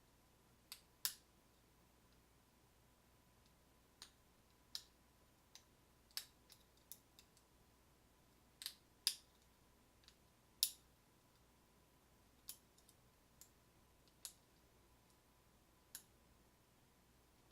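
Lock pick working the pin stack of a Schlage deadbolt under tension: sharp, irregular clicks of the pick and pins in the keyway, about one every second, a few of them much louder.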